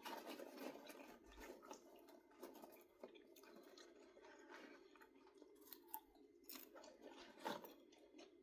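A person chewing popcorn, soft irregular crunches with a louder one near the end.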